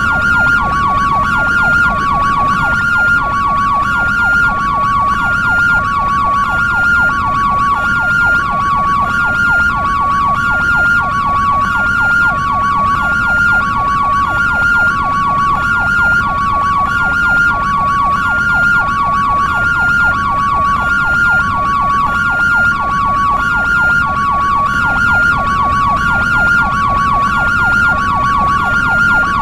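European ambulance two-tone hi-lo siren, alternating evenly between a higher and a lower tone, over a low steady rumble.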